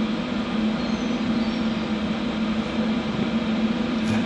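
Small HHO (oxyhydrogen) torch flame hissing steadily on a 2.5 mm steel bar, over a steady low hum. The flame is too weak to cut through the steel.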